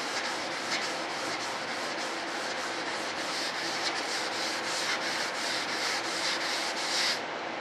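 Quick back-and-forth strokes of 220-grit sandpaper on a large hand sanding block, rubbing across a filler-coated model aircraft wing to block it flat. The strokes stop suddenly near the end.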